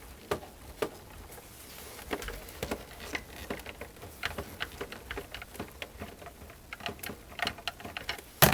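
Irregular light clicks and taps of screws, a screwdriver and plastic case parts being handled while a boombox is reassembled, with a sharper knock near the end.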